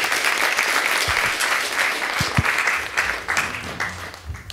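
Audience applauding, the clapping thinning out and dying away over the last second or so.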